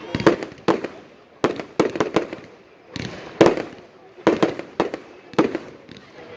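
Fireworks display: aerial shells bursting in quick succession, about two sharp bangs a second, each trailing off in an echo.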